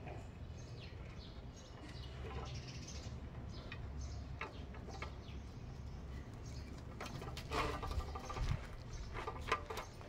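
Puppies eating from a metal plate, with small scratchy clicks of chewing, licking and nosing at the plate, thickest and loudest over the last three seconds, over a low steady rumble.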